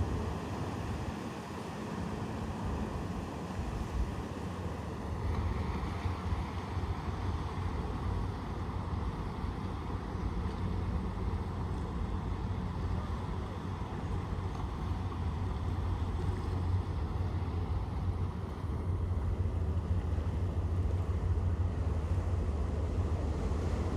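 Steady low rumble of a departing ship's engines, growing slightly louder toward the end.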